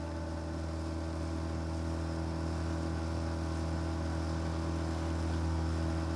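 An engine running steadily at constant speed, a low even hum.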